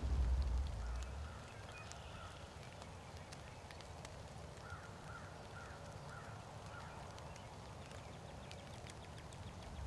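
Wild turkey calling faintly: a series of about six short yelps around the middle, after a low rumble in the first second.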